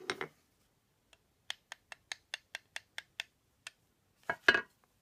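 Small hammer tapping a cast apron plane to set its blade. A run of about nine light, evenly spaced clicks is followed near the end by two louder knocks.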